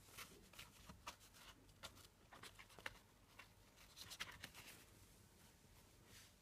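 Faint rustling and light clicks as a padded travel case is handled and a foam protective sheet is lifted out of it.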